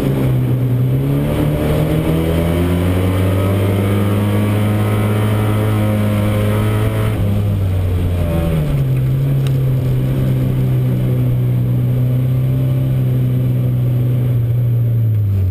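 Euro Rod race car engine heard from inside the car while racing. The revs shift about a second in, dip and climb again around seven to eight seconds in, then hold steady before dropping near the end.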